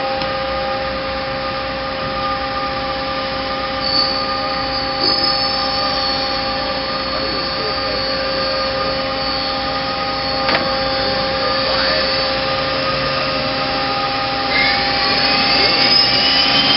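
Mazak QT20HP CNC lathe running, a steady whine of several tones, with a few short clicks. About two seconds before the end a rising whine sets in as the machine speeds up.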